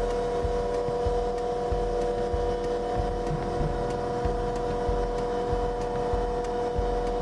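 A combination jointer-planer with freshly sharpened knives running with no cut being made, giving a steady machine whine over a low hum.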